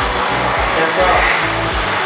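Background music with a steady bass beat, over a steady rushing noise.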